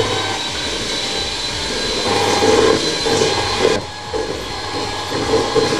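Electric hand mixer running, its beaters whisking eggs and sugar in a stainless steel bowl to beat them fluffy for a sponge batter. A steady whir that grows louder and more uneven about two seconds in, with a brief dip near the four-second mark.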